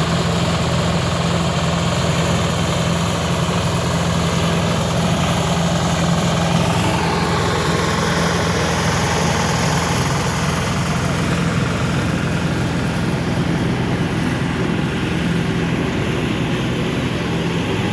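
An engine running steadily at idle: an even, unchanging low hum.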